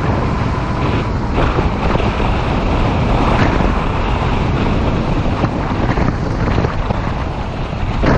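Wind rushing over the microphone of a 2015 Yamaha FJ-09 motorcycle under way, with the bike's engine and road noise underneath. A few faint, brief knocks come through.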